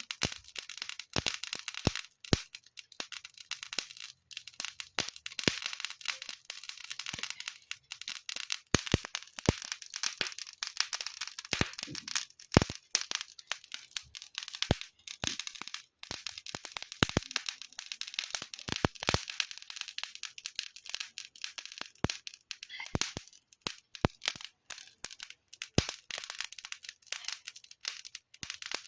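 Fire crackling, with irregular sharp pops, several a second, over a steady hiss.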